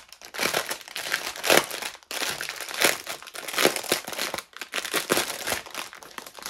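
Clear plastic packaging crinkling and rustling irregularly as hands work at a wrapped bundle of small plastic bags of diamond painting drills, with a brief pause about two seconds in.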